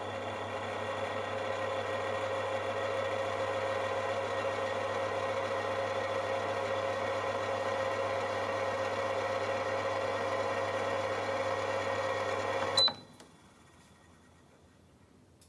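A toaster oven running with a steady hum that cuts off about thirteen seconds in with a sharp click and a short bell-like ding, the timer ending the cycle.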